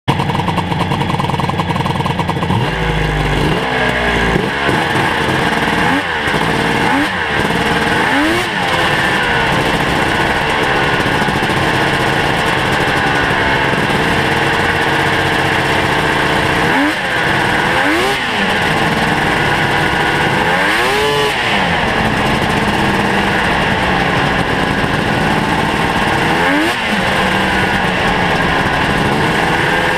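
Ski-Doo Mach Z snowmobile's two-stroke engine, with home-ported cylinders, running loud. It runs low and steady for the first couple of seconds, then pulls away, the revs rising and falling again and again as the throttle is worked.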